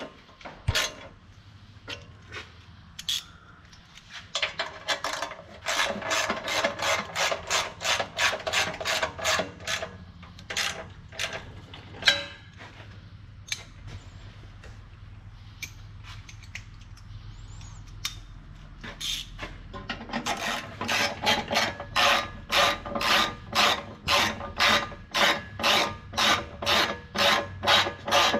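Hand ratchet wrench run back and forth to drive bolts home, its pawl rasping on each swing at about three strokes a second, in two long runs with a slower stretch and a single sharp click between them.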